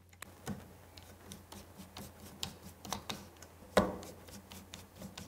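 Faint, irregular ticks and clicks of a hand driver turning scope-ring cap screws, metal bit on metal screw heads, with one louder click just under four seconds in. The screws are only being snugged, not yet torqued.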